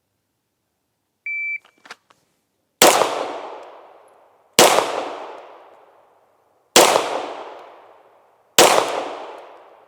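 PACT Club III shot timer's start beep, one short high tone, followed about a second and a half later by four pistol shots roughly two seconds apart, each trailing off in a long echo.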